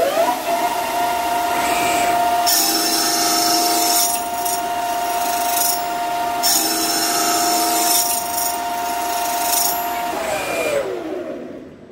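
CNC lathe spindle carrying an 80 mm 72-tooth HSS slitting saw spins up with a rising whine to about 1500 rpm and runs steadily. The blade cuts into 7075 aluminium held in a vise on the cross slide twice, each cut a harsh hissing screech lasting about a second and a half. Near the end the spindle winds down with a falling whine.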